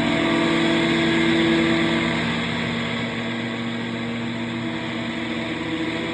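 Improvised drone-noise music: several low tones held steadily under a dense wash of hissing noise, easing off slightly about halfway through.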